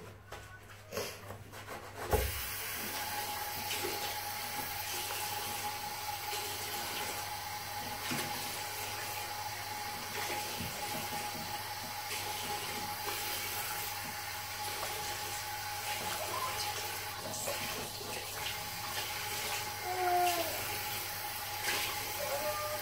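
Water running steadily from a bathroom sink tap into the basin, with a faint steady whistle. It comes on with a click about two seconds in, and a few brief squeaks come near the end.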